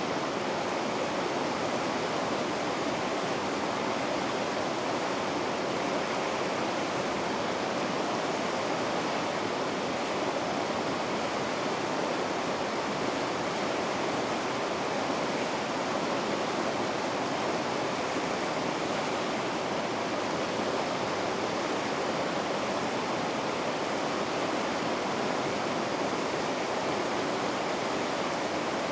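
River rapids rushing, a steady, unbroken roar of white water.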